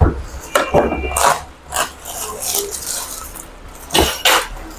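Unboxing handling noise: plastic packaging rustling, with several sharp knocks and clinks of metal fittings and light parts against a wooden table.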